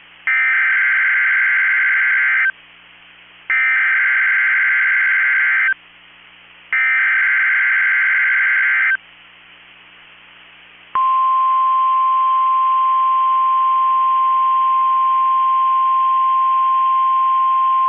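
NOAA Weather Radio Emergency Alert System header: three bursts of buzzing digital SAME data, each about two seconds long with a second's gap between them. About eleven seconds in, a steady single-pitch warning alarm tone of about 1050 Hz starts; it signals that an emergency alert broadcast is beginning.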